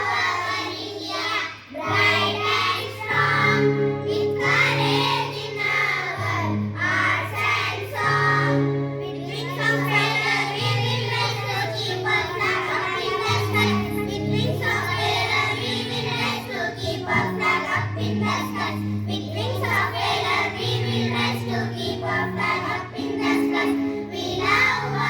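Children singing a song together over recorded backing music, with held bass notes that change every second or two.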